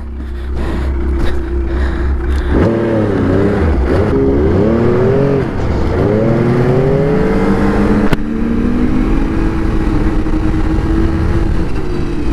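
Yamaha Vector snowmobile's three-cylinder four-stroke engine idling, then a little over two seconds in pulling away, its pitch swooping up and down as the throttle is worked. It settles into a steadier cruise in the second half.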